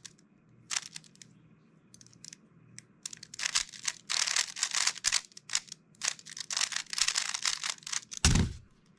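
Metallic-finish 3x3 speed cube being turned by hand: fast clicking and clacking of its layers, a few turns at first, then dense runs from about three seconds in, ending in a thump near the end.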